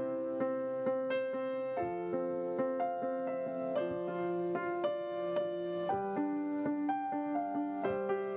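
Piano playing a slow melody, each note ringing on into the next.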